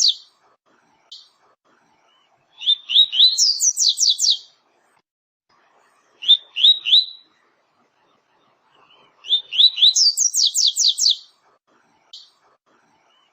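Double-collared seedeater (coleiro, papa-capim) singing the 'tui-tui' song: three clear phrases a few seconds apart, each opening with a few rising notes and running into a fast series of high down-slurred notes.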